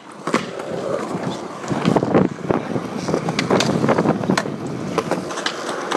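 Skateboard wheels rolling on concrete with a steady rumble, a sharp clack right at the start and scattered clacks of the board, and the board grinding along the edge of a concrete ledge.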